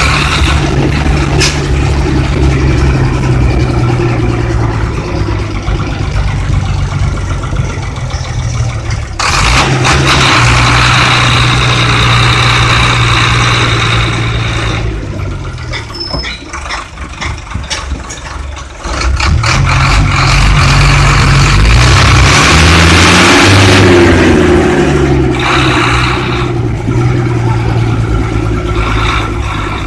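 Ashok Leyland bus's Hino diesel engine running loud under load, heard with its engine cover open in the cabin. Its pitch drops and climbs again several times as the bus is driven through the gears. It eases off about fifteen seconds in and pulls hard again from about nineteen seconds, rising and falling in pitch.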